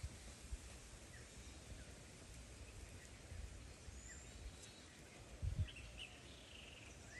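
Quiet outdoor ambience with faint bird chirps here and there and a few low thuds, the loudest about five and a half seconds in.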